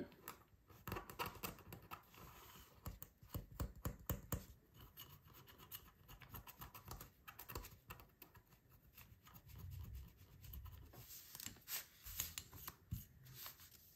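Faint, irregular scratching of a wooden stick scraping enamel paint off a glass piece to clean up a line, in many short strokes.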